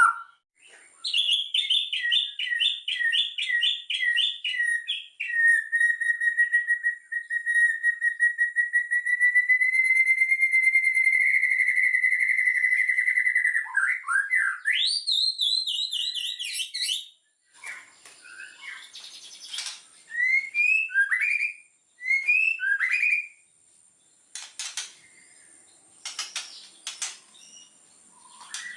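White-rumped shama singing: a run of quick repeated notes, then a long, steady whistled note held for about eight seconds that rises slightly and sweeps up into a high phrase. After that come quieter clicking notes and short rising whistles.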